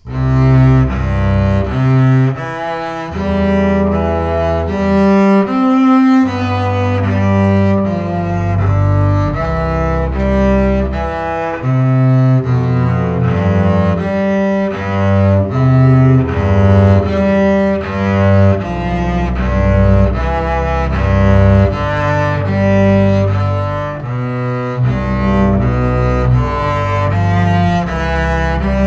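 Two double basses playing a duet with the bow, a steady succession of sustained notes that begins abruptly. It is a beginner-level study piece.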